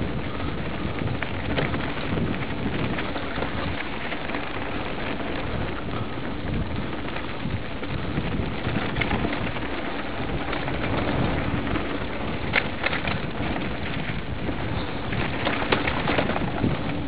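Hardtail mountain bike riding fast down a dirt trail: a steady rush of tyres on packed dirt and loose stones with wind on the microphone, and rattling clacks of the bike over bumps, busiest near the end.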